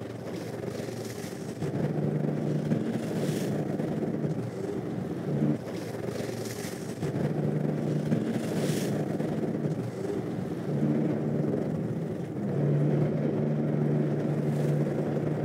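Fishing boat's engine humming at low revs, easing up and fading back in stretches of a few seconds as the boat holds position in a swell, with a few short swishes of wave wash.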